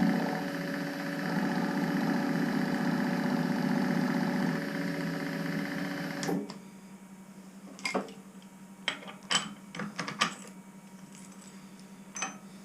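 Milling machine running with a steady hum, switched off about halfway through and spinning down quickly. Then several short, sharp clicks and knocks of metal parts and tools being handled.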